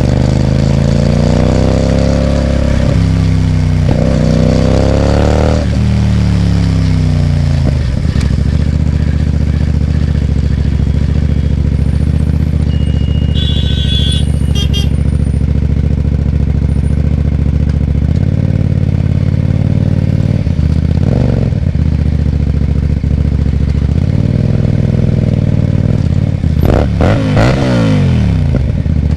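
Hyosung GT250R's V-twin engine through a loud aftermarket IXIL exhaust: revved up and down several times in the first few seconds, then idling steadily with a couple of light blips and a quick rev near the end. A short high beeping sounds about halfway through.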